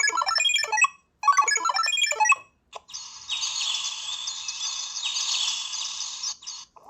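Samsung V200 mobile phone playing its ringtones: a quick run of short high beeps, played twice with a brief gap. After a click a little before three seconds in, a different ringtone follows, a steady buzzing, rippling tone that stops shortly before the end.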